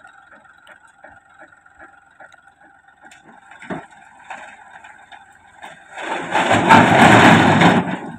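Massey Ferguson tractor running with a steady high whine while its trailer's tipping bed rises. About six seconds in, a large boulder and a load of soil slide off the raised bed and crash down onto the rock pile: a loud rumbling crash lasting about two seconds that cuts off sharply.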